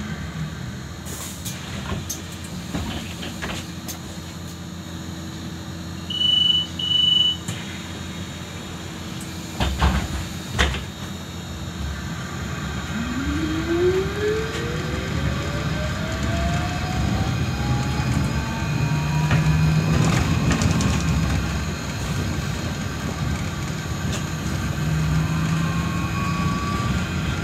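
Solaris Trolino 12 trolleybus heard from inside the cabin: the electric traction motor's whine falls away as it comes to a halt, two short high beeps sound, a couple of loud thumps with air hissing follow, then the whine rises steadily in pitch as the trolleybus pulls away and gathers speed.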